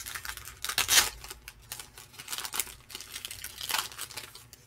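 A plastic trading-card pack wrapper being torn open and crinkled by hand, in a run of short crackles, loudest about a second in and again near the end.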